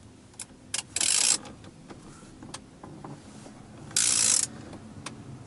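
Ratchet wrench with a 24 mm socket tightening a steering-wheel centre nut. Two short bursts of fast pawl clicking come about a second in and again about four seconds in, with a few single clicks between them.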